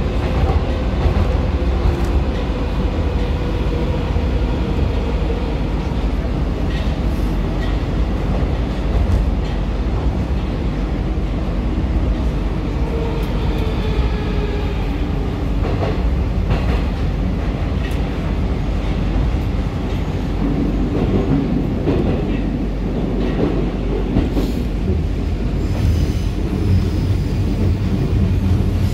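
Moskva-2019 metro train running through a tunnel, heard from inside the car: a steady loud rumble of wheels on rail with a faint motor whine. Near the end, as it pulls into the station, a thin high squeal starts.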